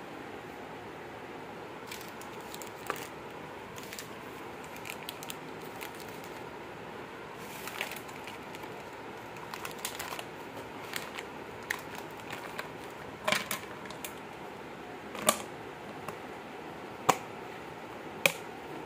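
Plastic snack wrappers crinkling and packets tapping against a perforated plastic basket as they are packed in by hand, with a few sharper plastic clicks in the second half, over a steady hiss.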